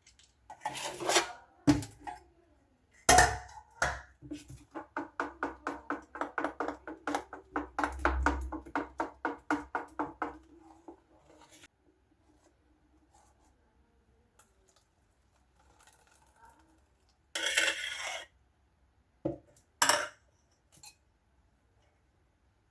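Dishes and cutlery clattering during kitchen work. In the middle comes a run of quick, regular strokes against a vessel lasting several seconds, like stirring or scraping. Near the end there are a couple of short clatters.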